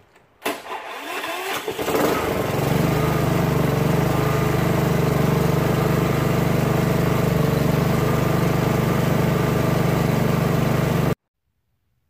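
Honda HRX217 lawn mower's single-cylinder engine starting about half a second in, rising in speed over the next couple of seconds, then running steadily at a constant speed to warm the oil before an oil change. The sound cuts off suddenly near the end.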